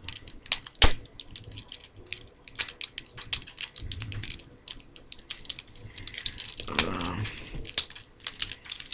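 Rapid small plastic clicks and snaps from a Transformers action figure's joints and panels being worked by hand during transformation, with one sharper, louder snap about a second in.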